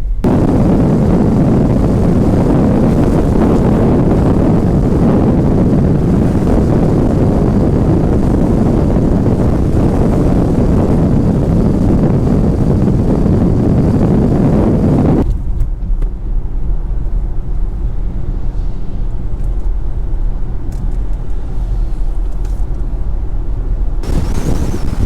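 Loud, dense rushing of storm wind buffeting the microphone. About 15 seconds in it cuts abruptly to a quieter, steady low hum of a car driving.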